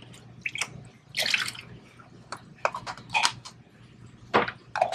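Water dripping and splashing from small plastic coral cups into a plastic tub: a string of short sharp drips and splashes, with a longer splash about a second in.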